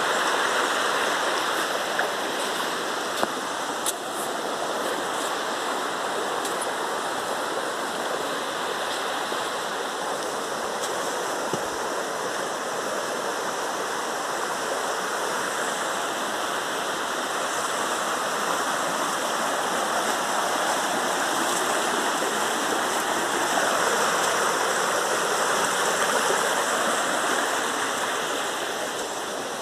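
Steady rushing of running water, like a stream, with a few faint clicks over it.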